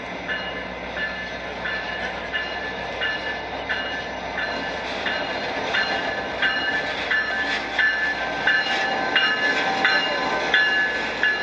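Diesel passenger locomotive, an EMD F40PH, pulling a train slowly into a station, with engine rumble and wheels on the rails. It grows louder as it passes close by in the second half. Over it, a bell rings steadily, about three strikes every two seconds.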